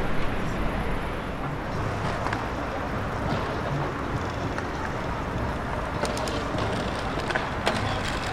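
Steady outdoor background noise of an open town square, a low hum with hiss, and a few faint clicks near the end.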